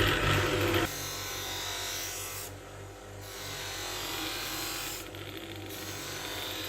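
A small electric power tool running steadily with a fine buzz, easing off briefly twice. A louder machine sound cuts off abruptly just under a second in.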